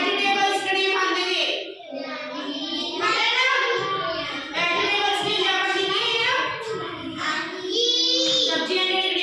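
A child singing a song in a high voice, with short breaks between phrases.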